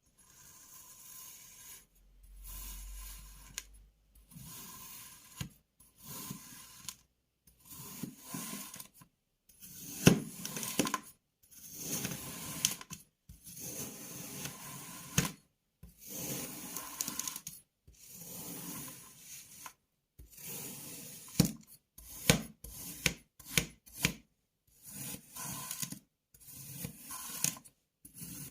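Kinetic sand being cut and scraped: a run of short, gritty scraping strokes with sharp clicks among them and brief silent gaps between.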